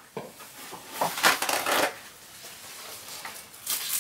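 Kitchen paper towel rustling and crinkling as a hand handles it, in a burst about a second in and another near the end.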